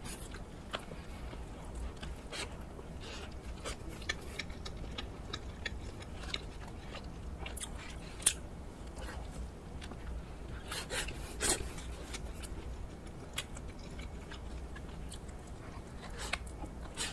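Close-up biting and chewing of a fried hot dog topped with crunchy garlic flakes: scattered crisp crunches and wet mouth sounds, the sharpest crunch about eight seconds in.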